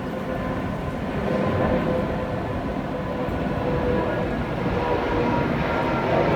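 Electric train at a station platform: a steady mechanical hum with a few held tones, growing slightly louder near the end.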